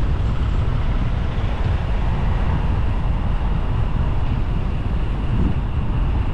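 Wind buffeting the microphone of a camera on a moving bicycle: a steady, loud, low rumble.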